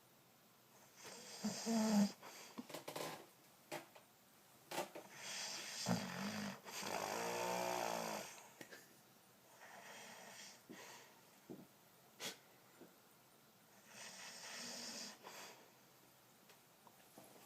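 A man snoring in his sleep: snores come every few seconds, the longest a drawn-out, buzzing snore with a clear pitch about seven seconds in. A few short clicks fall between the snores.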